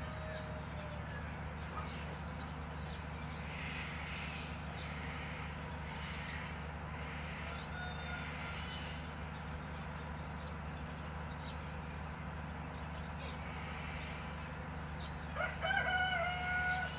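Steady chirping of insects over a low hum. About a second and a half before the end, a bird gives a loud call of several held tones lasting about a second and a half.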